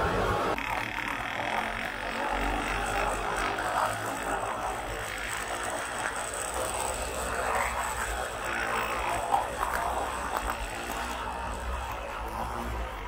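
HO scale model train coaches rolling past on the track, small wheels clicking and rattling over the rails with a light mechanical ratcheting.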